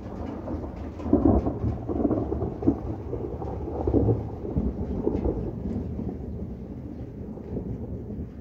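Rolling thunder: a long, deep rumble that swells in and peaks several times in the first half, then slowly eases off.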